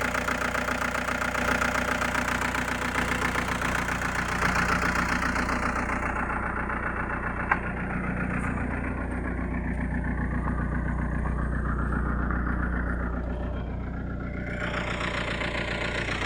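Toyota Grandia's common-rail diesel engine idling steadily, now running after a crank-but-no-start fault was fixed. A single sharp click about halfway through.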